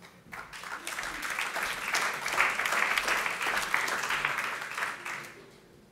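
Audience applauding in a hall, swelling over the first couple of seconds and dying away about five seconds in.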